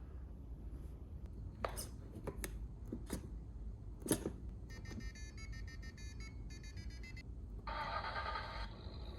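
A few sharp clicks, then a short electronic beeping tune of quick stepped tones from the Arduino-driven sound output of a model Jeep and garage, ending in about a second of harsher buzzing sound.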